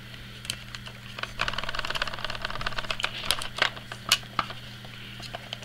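Handling noise from a plastic compact film camera: a few small clicks, then about two seconds of rapid clicking and rattling, then several more separate clicks.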